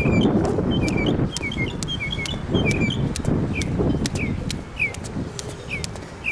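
Birds chirping in quick, short repeated calls. Under them, a jump rope ticks against the court roughly twice a second, and a low, uneven rumble sits underneath.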